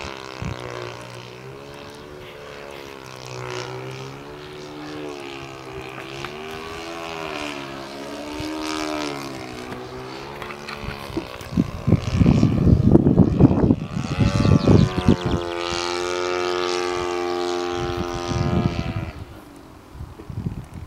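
Engine of a U Can Do 3D .46 radio-controlled model airplane flying overhead, its pitch wavering up and down. About halfway through, loud gusts of wind buffet the microphone. Then the engine holds a steady note, and more wind comes near the end.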